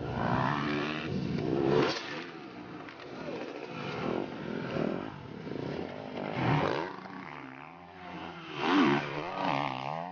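Off-road racing engines revving hard, the pitch climbing and dropping over and over, with loud surges about two, six and a half and nine seconds in.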